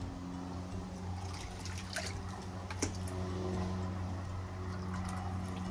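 Water splashing and dripping in a bait bucket as hands scoop live smelt out of it, with a few small splashes, the clearest about two and three seconds in, over a steady low hum.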